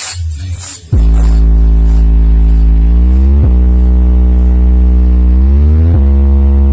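DJ sound system speakers blasting a heavy bass synth tone at full volume for a sound test. It starts abruptly about a second in and holds each note steadily, swooping down to a new pitch about every two and a half seconds.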